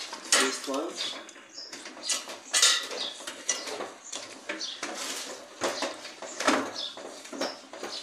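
Irregular metallic clinks, taps and scrapes as screws and a screwdriver work against a refrigerator condenser being screwed onto the back of the fridge, with a few sharper, louder knocks among them.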